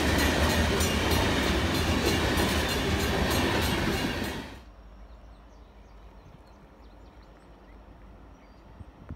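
Freight train tank cars rolling past, a steady rumble with rhythmic clacking of the wheels over the rail joints. It cuts off suddenly about four and a half seconds in, leaving a quiet background with a few faint high chirps.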